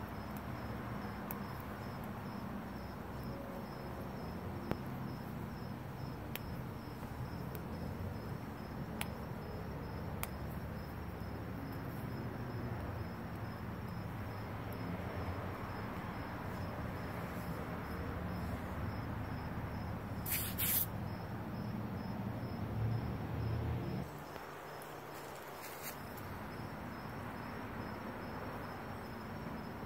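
A cricket chirping in a steady, evenly spaced high pulse, over a low rumble that drops away about 24 seconds in. A brief knock or scrape about 20 seconds in.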